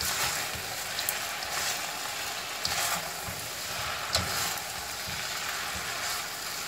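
Bean thread noodle stir-fry sizzling in a hot steel wok over high heat while it is tossed with a spatula and chopsticks. The utensils clack and scrape against the pan a few times.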